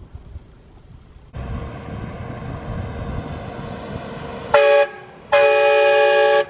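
Aftermarket multi-trumpet air train horn sounding a chord of several steady tones: one short blast, then a longer blast of about a second. A steady running mechanical noise starts about a second before and carries on under the horn.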